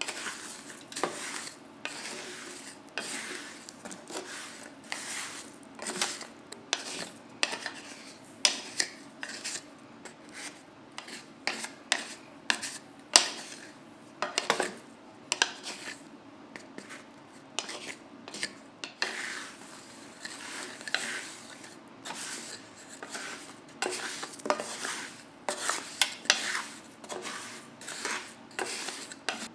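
Chestnuts being stirred through hot salt in a pan with a spatula. The strokes are irregular scraping and rattling, about one or two a second.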